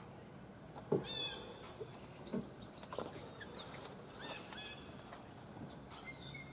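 Scattered bird chirps and calls, including a quick run of notes about a second in, over faint outdoor background. A few short low thumps sound along with them, the loudest about a second in.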